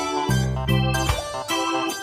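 Background music: a bright keyboard tune with a bass line, notes changing every fraction of a second.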